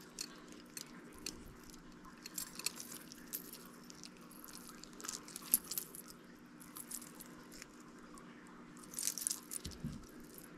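Costume jewelry being handled: a gold-tone chain with blue beads and the pile around it give off light, scattered metallic clicks and clinks, with a brief cluster of clinks near the end, over a faint steady hum.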